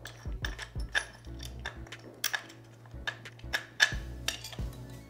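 Metal hand tools clicking and clinking irregularly against a bolt on a metal arm while the bolt is loosened, the loudest clink a little before four seconds in. Background music with a steady beat plays underneath.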